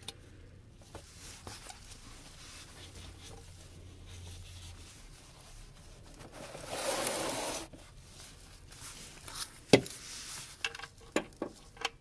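Oil dribbling faintly into a drain pan from an open oil-pan drain hole. About seven seconds in there is a brief rustle, then a sharp knock near the ten-second mark, followed by a few small clicks.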